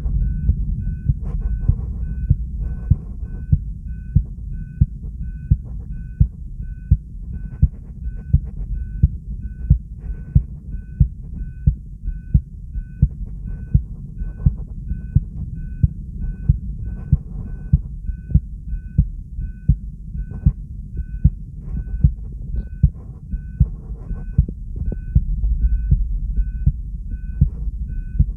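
Steady, normal human heartbeat, about 75 beats a minute, with regular thumps over a low steady rumble.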